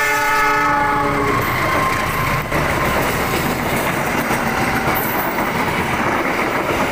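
A diesel locomotive's horn sounds a chord of several tones as a passenger train comes by, cutting off a second or so in. After that comes the steady noise of the passenger coaches running past close by on the rails.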